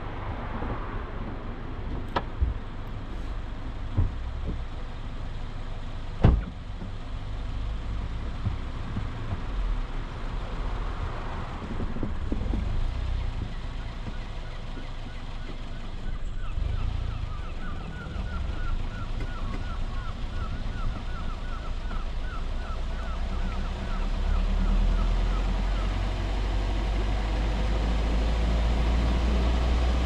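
Car driving on a wet, slushy road with a steady low rumble of engine and tyres, louder near the end. A few sharp knocks come in the first seconds, and a run of quick, regular ticks lasts about ten seconds in the middle.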